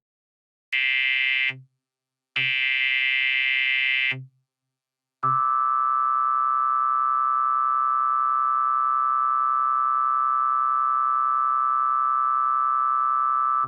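Emergency Alert System alert tones: two harsh buzzing bursts, the first short and the second nearly two seconds long, then a steady electronic attention tone that begins about five seconds in and holds without changing.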